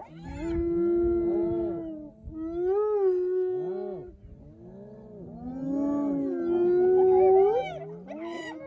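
A group of hyenas calling over each other: long, held, wailing yells mixed with many short rising-and-falling whoops. The calls come in three swells, the last one the loudest.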